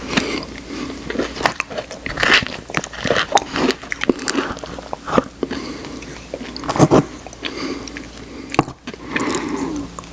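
Close-miked ASMR eating of Oreo ice cream: wet mouth clicks and chewing of the soft ice cream with crunchy Oreo cookie pieces, in an irregular run of sharp little clicks.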